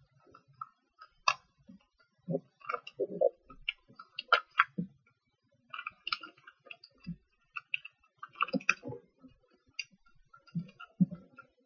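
A sheet of origami paper being folded and creased by hand, making irregular crisp crinkles and sharp little clicks.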